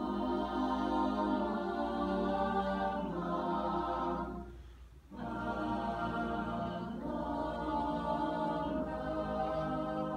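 Mixed-voice choir singing held chords, with a short break for breath just before halfway, then coming back in on another long chord.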